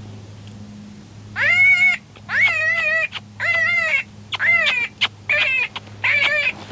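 Predator call playing a series of about six wavering, high-pitched distress cries, each about half a second long, starting about a second and a half in and repeating roughly once a second, used to lure coyotes in.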